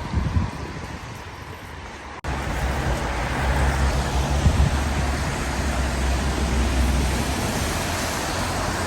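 Steady vehicle running noise: a low rumble under an even hiss. About two seconds in it cuts to a louder stretch where the rumble is strongest, then the rumble eases near the end.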